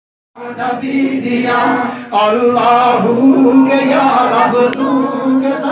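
Male voices singing in a slow, chant-like style: the opening of a devotional naat in praise of the Prophet. It starts a moment after a brief silence, with a dip around two seconds in.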